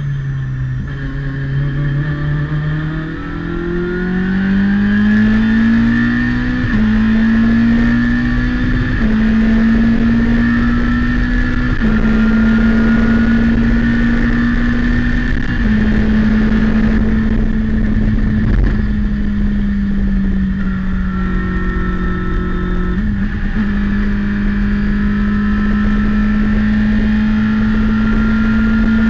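A Citroën Saxo race car's four-cylinder engine heard from inside the cockpit. It accelerates hard out of a slow corner, the note climbing in steps as it shifts up from first gear to fourth, then is held high at around 6,500–7,000 rpm flat out.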